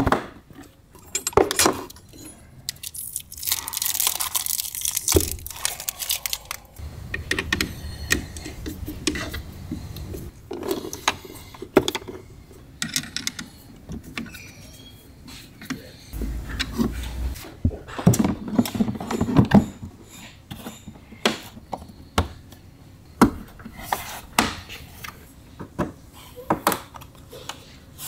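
Hands-on shop work on a motorcycle: a run of sharp clicks, knocks and rustles as plastic packaging, body panels and a hand tool on a battery terminal are handled, with a stretch of rustling about four seconds in and low rumbling stretches in the middle.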